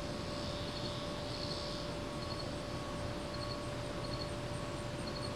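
Insects chirping in an evening field: short triple chirps about once a second, and a faster, higher ticking about three times a second, over a faint steady hum.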